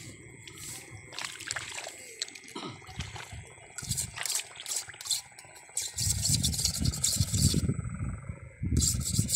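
Close rustling and rubbing: scattered crackles at first, then a dense, rapid scraping over the last three seconds, pausing briefly just before the end.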